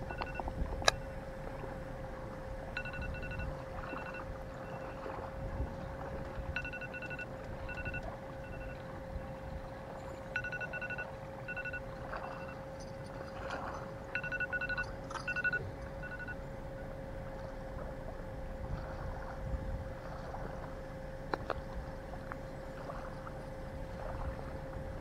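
Wind noise buffeting the microphone over a steady faint hum, with small groups of short high pips every few seconds through the first two-thirds and a couple of sharp clicks.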